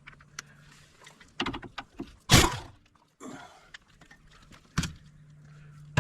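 Hand tools working on a car's sway bar link: a few light clicks, then a run of metal clunks and a loud clank near the middle, with another sharp knock near the end, as the link's nut is worked loose.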